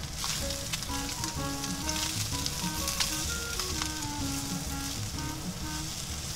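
Sliced Spam and shima rakkyo (Okinawan shallots) sizzling steadily in a frying pan in the fat rendered from the Spam, stirred with chopsticks. There are a few sharp clicks of the chopsticks against the pan.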